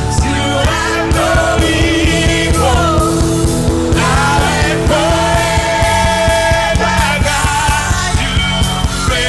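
Gospel worship band music with a steady drum beat and bass under a lead melody line that bends and wavers, with some singing.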